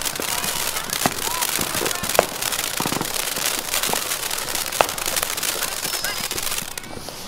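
Ground fountain firework burning: a dense hissing crackle of sparks with scattered sharp pops, a few louder than the rest. It cuts off abruptly shortly before the end.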